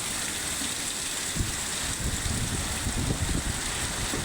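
Heavy rain pouring steadily, with wind gusting against the microphone from about a second and a half in.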